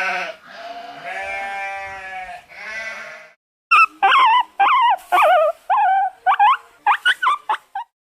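Three drawn-out bleats, then after a short pause a rapid string of about a dozen short, wavering higher-pitched calls.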